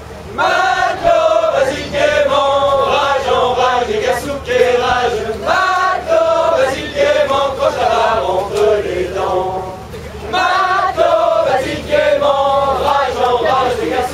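A group of mainly male voices singing together in chorus, a chanted song in phrases with short breaks between, and a longer pause about ten seconds in.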